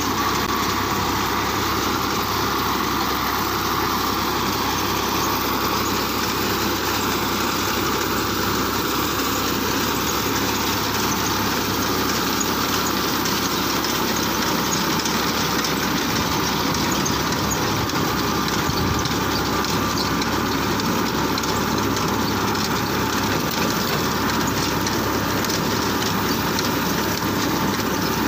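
Tractor engine running steadily under load, mixed with the continuous mechanical clatter of a tractor-mounted reaper binder cutting and binding wheat.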